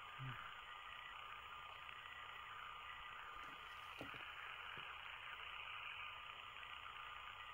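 Quiet steady background hiss with a faint steady whine, broken only by a few faint small taps about three to four seconds in.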